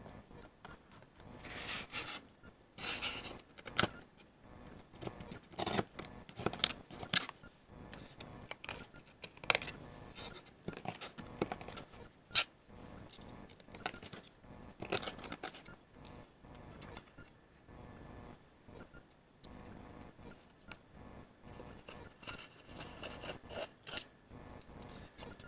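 Scissors cutting thin fruit-crate wood: a string of irregular short snips, with quieter scraping between them.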